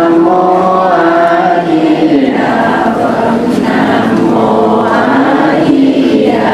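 A group of voices chanting together in unison: Vietnamese Buddhist chanting by monks and congregation, in sustained phrases of a few seconds each.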